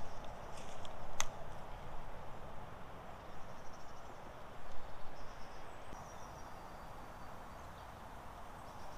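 Lakeside ambience: a steady background hiss with faint high chirping of small birds scattered throughout, and a single sharp click about a second in.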